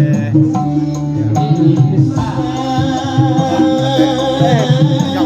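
Live band music: a steady hand-drum beat under a held, wavering melody line, between sung lines of a love song.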